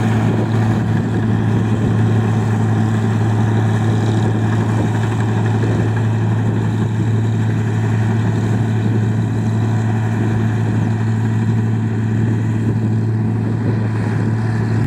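Engine-driven rice milling machine running at a steady speed, with a strong, unchanging low hum.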